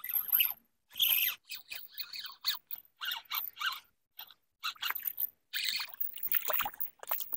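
Short, irregular scrapes and splashes as a small striped bass is reeled in to a gravel shore and lands at the water's edge.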